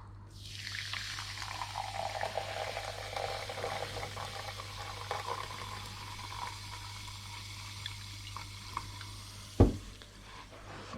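Fizzy Irn Bru being poured into a measuring jug. The pour's tone rises as the jug fills, and the soda keeps fizzing afterwards. A single knock comes near the end.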